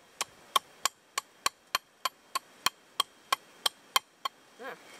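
Machete chopping a green coconut with quick, evenly spaced light strikes, about three a second, chipping away the hard shell at the top to open the nut.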